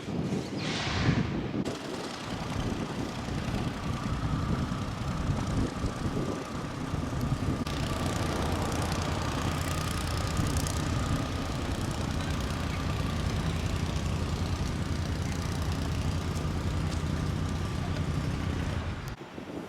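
Steady engine drone with a faint high whine over it, cutting off abruptly near the end; a brief whoosh comes just before it.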